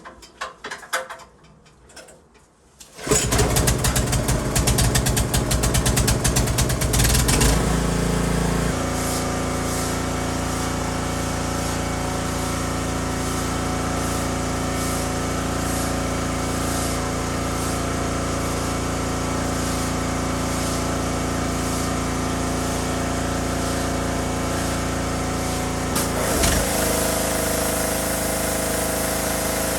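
Pressure washer engine starting about three seconds in, running unevenly for a few seconds, then settling into a steady run, with a brief dip in its note near the end.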